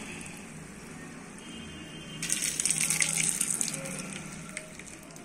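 Hot caramelised rock-sugar syrup poured onto a ghee-greased steel plate, sizzling and crackling loudly from about two seconds in, then fading.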